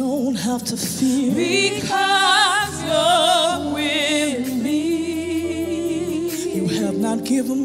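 Live gospel worship music: a woman sings the lead with strong vibrato, drawing out long held notes and sliding runs, over a band with keyboard and bass.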